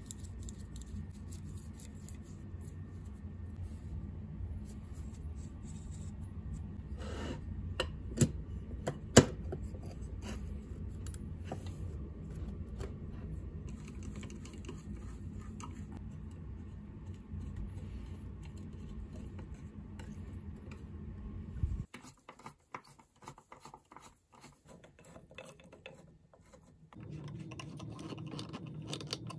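An abrasive pad scrubbing steel hand-plane parts by hand, with small metal clinks and clicks as the parts and a screwdriver are handled. Two sharp clinks come about eight and nine seconds in. Later the sound turns to scattered light clicks of the plane being reassembled.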